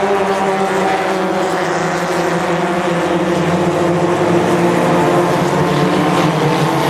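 Several Formula Ford 1600 racing cars running through a corner, their four-cylinder Ford Kent engines sounding together as a loud, steady mix of engine notes. Near the end one note shifts in pitch as a car passes close.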